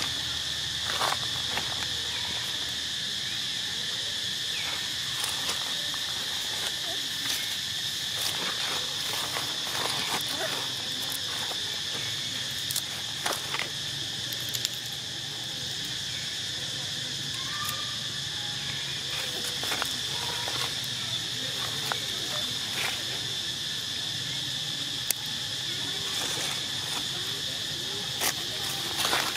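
Steady, high-pitched drone of insects calling in chorus, with scattered crackles of dry leaves as a monkey forages in the leaf litter.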